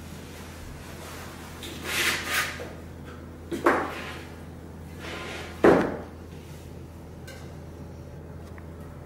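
A wooden silkscreen frame is handled on a cloth-covered floor: two brief rubbing swishes about two seconds in, then two wooden knocks a couple of seconds apart, the second the loudest.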